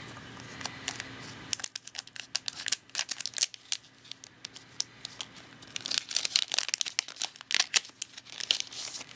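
Foil trading-card booster pack being cut open with scissors and pulled apart, its wrapper crinkling in a run of sharp crackles and rustles.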